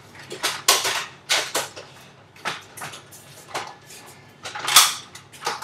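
Irregular sharp clicks and knocks, about ten in all, with the loudest a little before the end.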